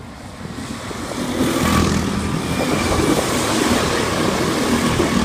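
A pack of go-karts running past close by, several kart engines at once, getting louder over the first two seconds as they approach and then staying loud as they go by.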